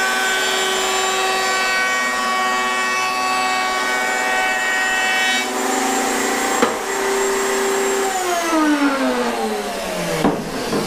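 Electric router running with a steady high whine while a 1/4-inch round-over bit cuts the edge of a Corian cutting board. About eight seconds in, the router is switched off and its whine falls steadily as it spins down, with a few knocks near the end.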